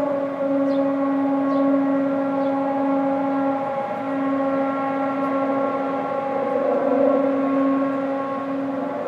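The 'strange noise' said to come from the hills: a steady, low, siren-like drone held on one pitch with many overtones, breaking off briefly about four seconds in and then resuming.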